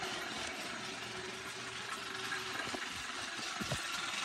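Battery-operated Santa Fe toy locomotive running on its track, its small motor and gears whirring steadily, with a couple of sharp clicks about three seconds in.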